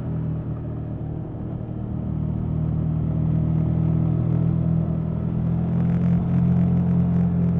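KTM 1290 Super Adventure S motorcycle's V-twin engine running through its stock exhaust at a steady note, getting gradually louder after about two seconds.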